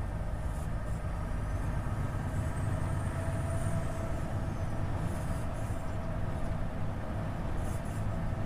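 Volvo FH 500 truck's 13-litre six-cylinder diesel running on the move, a steady low drone, with a faint high whine that rises and falls around the middle.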